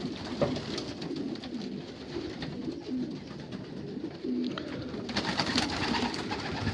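Racing pigeons cooing in the loft, short low coos repeating throughout. From about five seconds in, a run of sharp clicks and rustles joins them.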